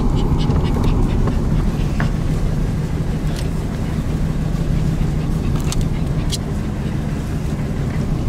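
Old truck running at low speed on a dirt road, heard from inside the cab as a steady low engine-and-road rumble, with a few faint clicks.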